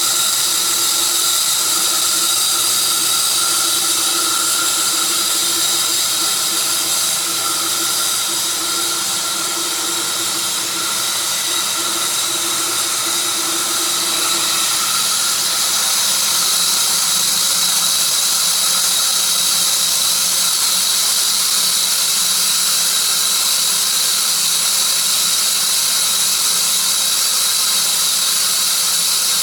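A sawmill cutting a tree of heaven log: a steady, high-pitched whine over a loud hiss. A lower hum underneath fades out about halfway through.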